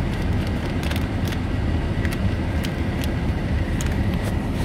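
Steady low rumble inside a car cabin, with scattered light clicks.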